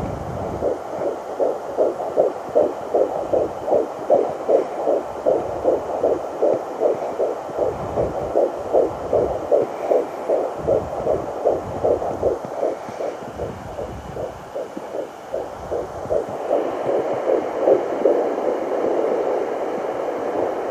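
Fetal heartbeat at 12 weeks picked up through a Sonoline B handheld fetal doppler: fast, even pulses over a steady hum, with occasional low thumps. The pulses grow less distinct near the end.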